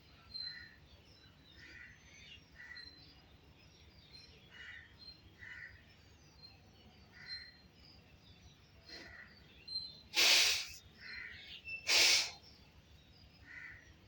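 Pet parrots calling: a run of short, soft calls, then two loud, harsh squawks about two seconds apart near the end.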